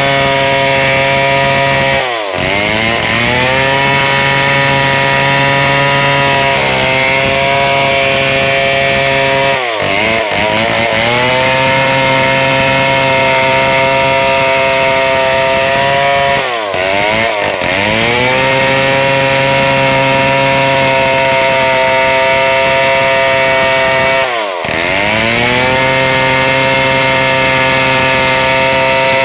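Two-stroke chainsaw running at high revs, ripping lengthwise through a large log. About four times the engine note briefly drops in pitch and climbs back.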